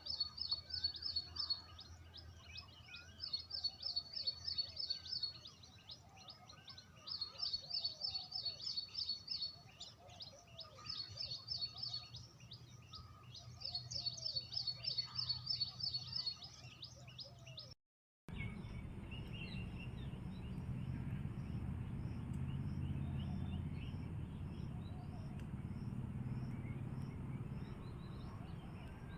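A bird repeating a fast, high trilled song five times, each phrase about two seconds long, with fainter, lower calls of other birds in between. After a cut a little past halfway, a steady low rumble with faint, evenly spaced high chirps.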